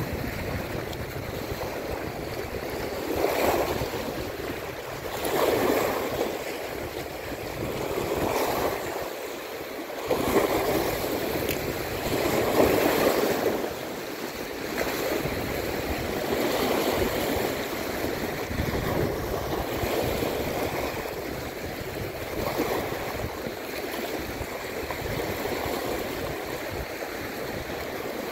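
Sea waves breaking and washing over shoreline rocks, the surf surging about every two to three seconds, with wind buffeting the microphone.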